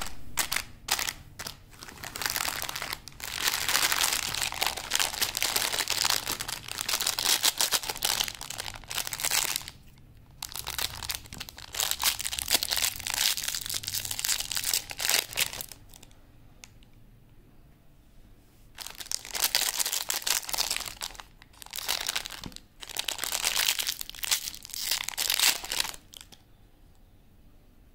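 Thin plastic lollipop wrappers crinkling in the hands as they are handled and opened. The crinkling comes in several long bursts with short pauses between them, and dies away about two seconds before the end.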